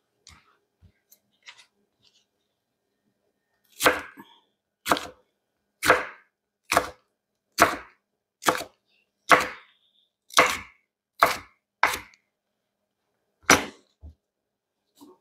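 Kitchen knife chopping bell pepper on a cutting board: a few faint light taps, then about eleven separate, sharp chops at roughly one a second, starting about four seconds in.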